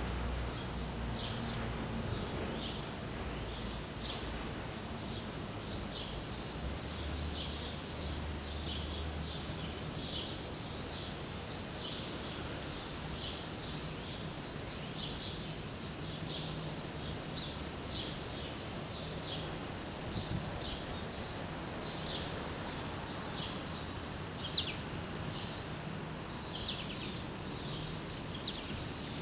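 Birds chirping: short, high chirps in quick, irregular succession over a steady background noise, with a faint low hum now and then.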